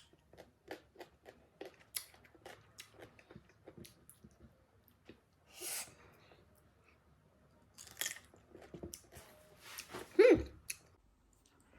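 Close-up chewing of crunchy unripe green mango, with many small wet clicks and crunches and a few louder crunching bites. Near the end comes a short voiced sound sliding down in pitch, the loudest moment.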